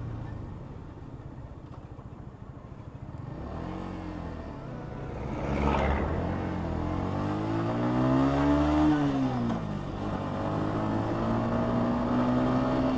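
Yamaha XSR155's single-cylinder engine under way: low for the first few seconds, then its pitch climbs as it accelerates, drops back about two-thirds of the way in, and settles steady.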